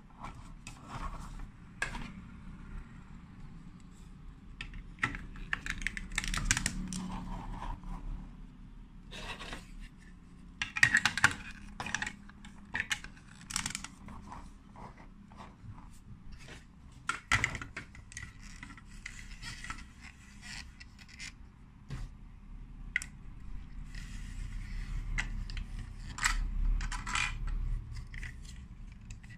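Lego Duplo plastic bricks handled and pressed together onto a toy base: irregular clicks, taps and scrapes of hard plastic.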